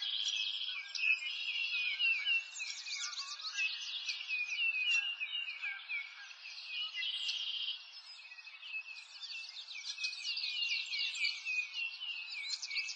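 Chorus of small songbirds chirping, many quick calls overlapping, with a rapid trill at the start and again about seven seconds in.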